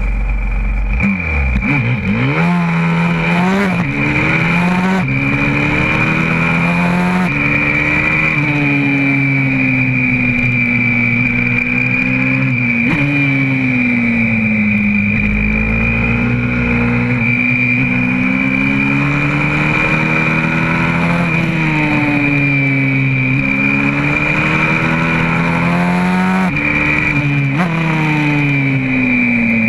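Onboard sound of a YCF 125cc four-stroke pit bike engine pulling away about a second in, revving up in quick steps through the gears, then rising and falling again and again as the bike accelerates and slows for corners. A steady high-pitched whine runs over the engine.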